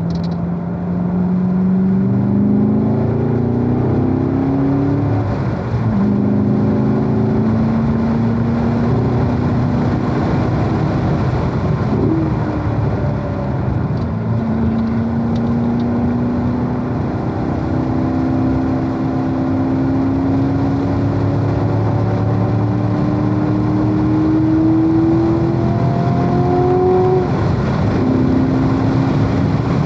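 Corvette engine on track accelerating in long pulls. Its pitch climbs steadily, then drops at gear changes about six seconds in, around twelve to fifteen seconds, and again near the end, over a steady rush of road and wind noise.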